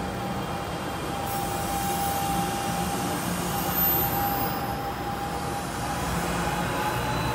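NJ Transit Arrow III electric multiple-unit train moving along the station platform: a steady low rumble with a thin high whine held throughout, and a brief hissing swell in the middle.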